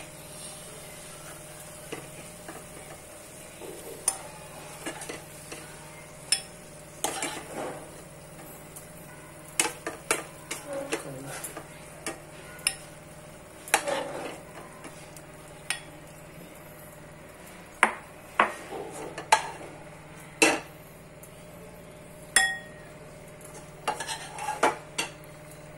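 A metal spoon scraping and knocking against a frying pan as cooked chicken fry is scooped out, with clinks as it is served into a glass bowl. The knocks and scrapes come irregularly, about twenty in all, over a faint steady hum.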